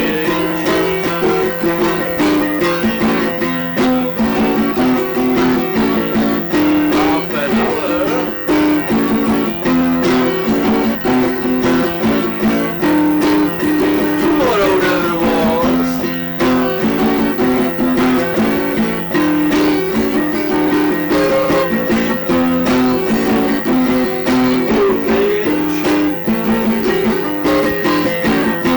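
Instrumental music: a repeating plucked guitar figure over a steady low drone, with a wavering, sliding line rising and falling about halfway through.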